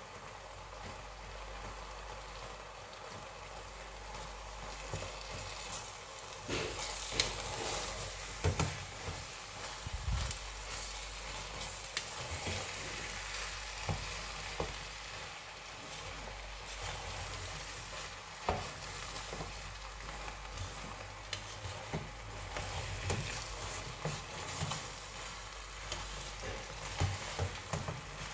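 Fried rice frying in a stainless steel pot while it is stirred with a wooden spoon: a steady sizzle with scattered knocks and scrapes of the spoon against the pot.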